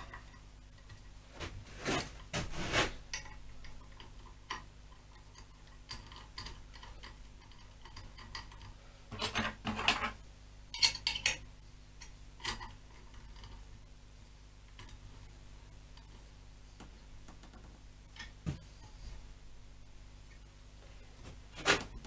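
Metal parts of a small homemade bending jig being handled and set down on a workbench: scattered clinks and knocks, bunched about two seconds in and again around nine to eleven seconds in, with a few single knocks later.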